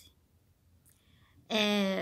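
A pause of near silence, then about one and a half seconds in a woman's voice comes in on a long held vowel.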